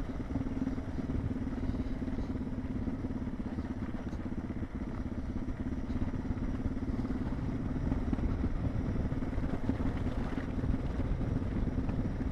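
Suzuki DR650's single-cylinder four-stroke engine running steadily at an even throttle as the motorcycle rides up a dirt trail.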